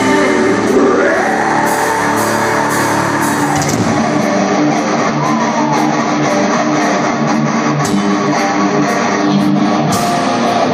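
Live metal band playing: distorted electric guitars and bass over drums, with a violin playing held notes that glide in pitch.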